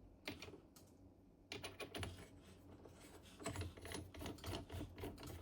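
Faint, irregular small clicks and taps of metal parts being handled on a Deckel SO cutter grinder, over a faint steady low hum.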